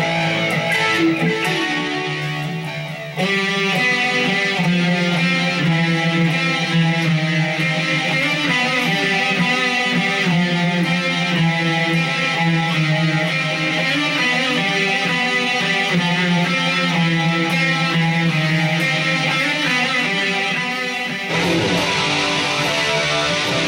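Epiphone Les Paul Special I electric guitar with humbucker pickups, played through tone patches on a Boss eBand JS-10 effects processor. The tone changes abruptly about three seconds in and again near the end.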